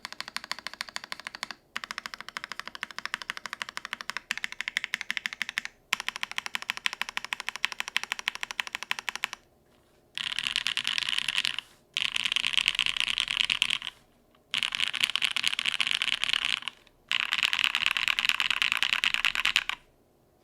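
Typing on a Matrix 2.0add mechanical keyboard with lubed Gateron Box Ink Black V2 linear switches on an undampened carbon fiber plate, under GMK keycaps. It starts as ordinary typing with brief pauses. About halfway through it turns into four louder runs of very fast, dense keystrokes, each about two seconds long.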